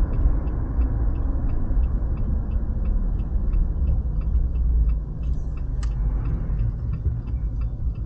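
Low engine and road rumble inside a Jeep's cabin while it tows a travel trailer, with the turn-signal indicator clicking steadily and evenly as the vehicle turns.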